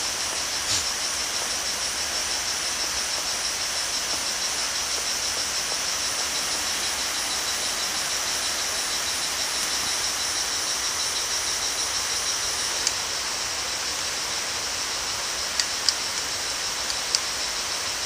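Rainforest insect chorus: a steady, high, finely pulsing drone over a constant hiss, easing off somewhat about two-thirds of the way through, with a few light clicks near the end.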